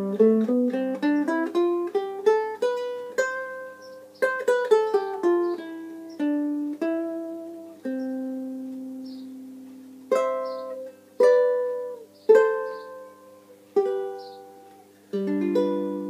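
Solo tenor ukulele built from pallet wood, played with single plucked notes: a quick rising run in the first three seconds, then a slower melody with a few chords, each note ringing briefly and dying away.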